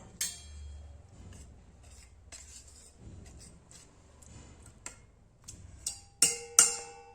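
Metal kitchen utensils knocking against a vessel: light scattered clinks, then two sharp strikes about six seconds in that leave the metal ringing.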